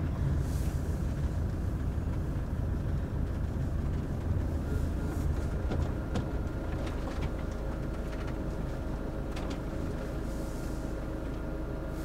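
Motorhome's diesel engine running as it drives slowly, heard from inside the cab, with a steady low rumble of engine and tyres on the road.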